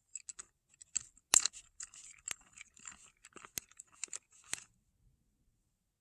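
A person chewing crunchy food close to the microphone: a run of irregular crunches and clicks, the loudest about a second and a half in, stopping near the end.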